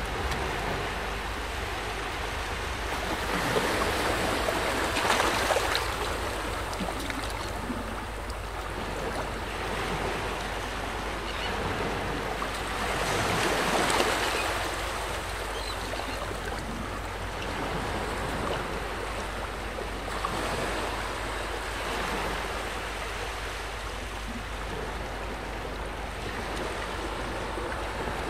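Shoreline ambience of wind and small waves on calm bay water: an even rushing noise that swells louder twice, a few seconds in and again about halfway through.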